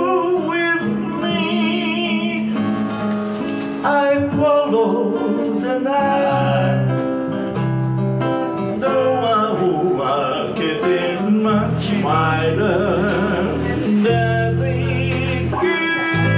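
A man sings a slow song over a nylon-string classical guitar, with an electric bass playing low notes that come in about a third of the way through.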